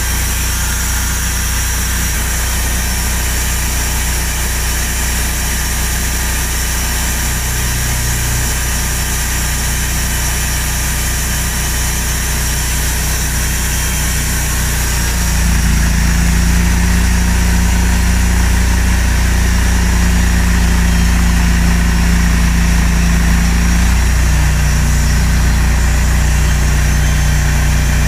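Large log band sawmill running with a steady machine hum. About halfway through, the hum becomes louder and heavier, with stronger low tones, as the band blade enters the spruce log and starts cutting.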